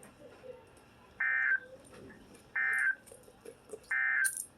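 Emergency Alert System end-of-message code: three short, identical bursts of digital data tones, about 1.4 seconds apart, signalling the end of the alert broadcast.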